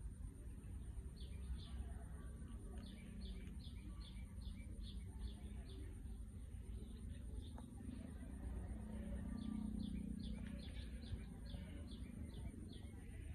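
A bird chirping in bouts of short, high, quickly falling notes, about two or three a second, over a low background rumble and a faint steady high whine.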